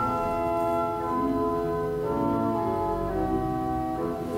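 Organ music: slow, held chords that change about once a second.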